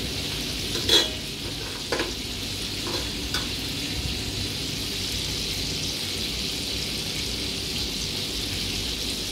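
Tofu cubes deep-frying in hot oil in a wok, a steady sizzle as they cook until crisp. A few light knocks sound in the first few seconds, the loudest about a second in.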